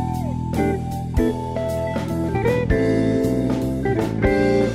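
Soundtrack music: a blues-style tune led by guitar, with bass and drums keeping a steady beat.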